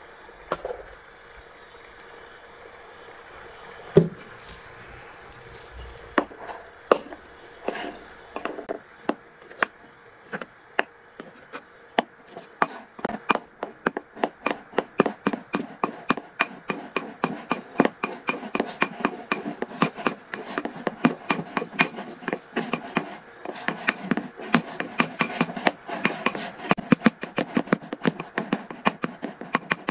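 Repeated sharp clicking and tapping: a few scattered clicks at first, then a steady run of quick strokes, several a second, through the second half.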